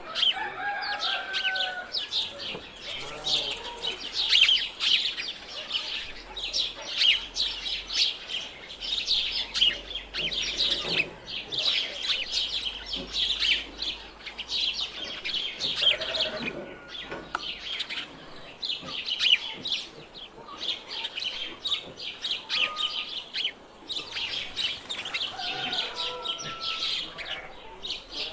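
A flock of sheep and goats on the move: a few bleats rise now and then over a constant dense, high chirping and clicking chatter.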